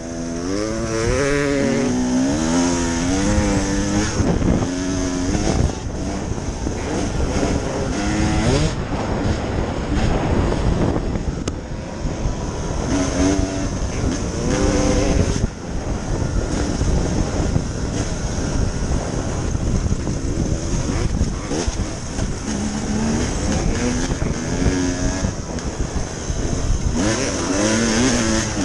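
2014 Husqvarna TE300 two-stroke single-cylinder dirt bike engine being ridden hard, its revs climbing and dropping again and again as the throttle is worked.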